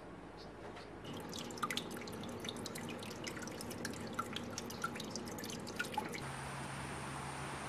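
Water dripping in irregular, separate drops, many to the second. About six seconds in they give way to a steady hiss with a thin high whine and a low hum.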